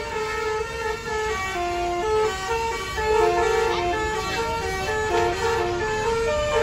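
A multi-tone bus horn (telolet horn) playing a quick tune of short, steady notes that step up and down in pitch, with the bus engine running underneath.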